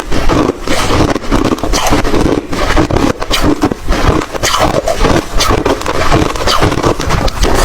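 Crunchy white ice being crushed and chewed, a dense run of loud, irregular crunches with no pause.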